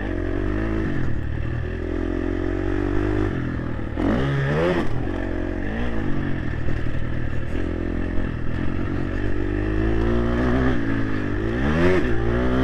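Motocross bike engine running under load, its pitch climbing and falling as the throttle is worked, with sharp revs about four seconds in and near the end.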